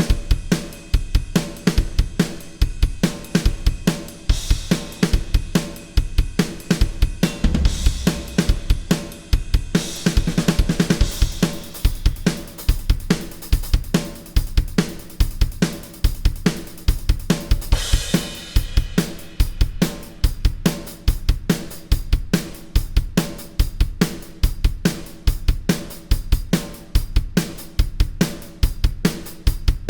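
Acoustic drum kit played on its own in a steady rock groove, with snare, bass drum, hi-hat and cymbals. The pattern changes about ten seconds in, and a cymbal crash about eighteen seconds in starts a new section.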